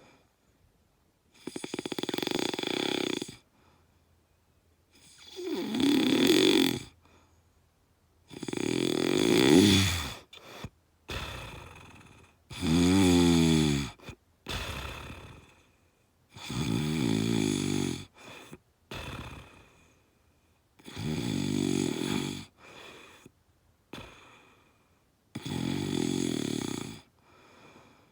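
Loud snoring: a snore about every four seconds, seven in all, each lasting about two seconds, with a softer, shorter breath sound between them.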